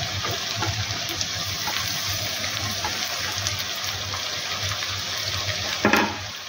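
Chopped tomatoes and green chillies sizzling in hot oil with softened onions in a kadai: a steady frying hiss, the wet tomatoes just added to the hot pan. A brief knock near the end.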